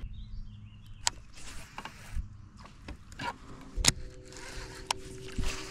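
Several sharp knocks and clicks of gear in a small fishing boat, and from about four seconds in a steady low hum.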